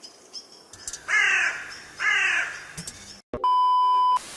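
Two harsh caws of a crow, each falling in pitch, followed by a steady high beep lasting under a second and then a brief hiss.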